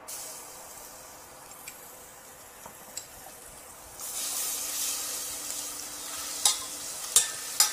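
Garlic-ginger paste sizzling in hot oil in a stainless steel saucepan as it is stirred with a spatula. The sizzle grows louder about four seconds in, and the spatula taps sharply against the pan a few times near the end.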